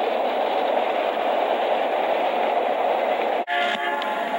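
Steady rolling noise of a passing freight train as its caboose goes by. About three and a half seconds in it cuts off abruptly, and a diesel locomotive horn starts sounding several tones at once.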